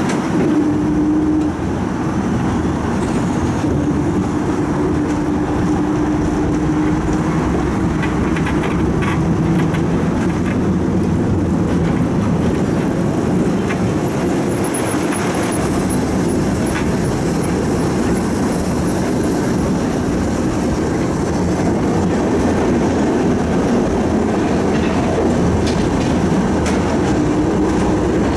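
Budapest tram running on its rails, heard from on board: a steady rumble of steel wheels on track with scattered clicks, and a low motor hum that comes and goes.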